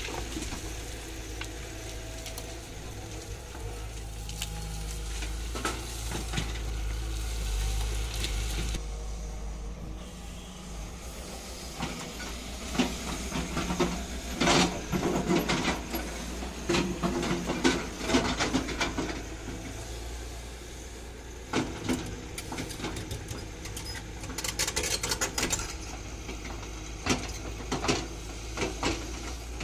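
Tata Hitachi 200LC crawler excavator's diesel engine running steadily, with clattering knocks of rock and the steel bucket and tracks on broken stone, in bursts from before halfway through and again near the end.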